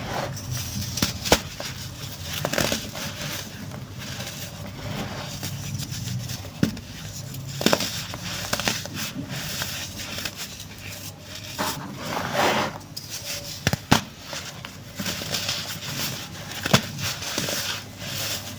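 Chunks of baking soda being crushed and crumbled: a steady crunching and crackling with sharp snaps here and there, the loudest a little after the start and near the end.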